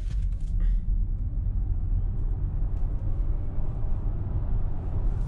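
Cabin noise of a Volkswagen ID.4 electric SUV on snow tyres accelerating hard from a standstill at full pedal. A low rumble of tyre and road noise swells within the first second, then stays loud and steady as the car gathers speed.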